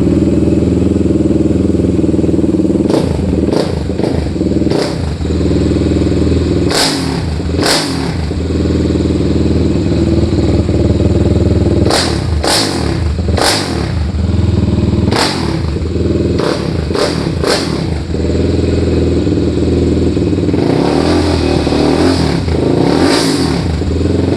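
Suzuki LTR450 quad's single-cylinder four-stroke engine running steadily at idle, with a string of short sharp sounds between about 3 and 18 seconds in, and the revs rising and falling a few times near the end.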